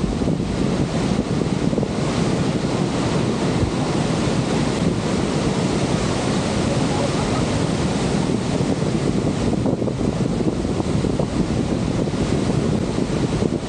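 Steady rush of water at Niagara Falls, with wind buffeting the microphone.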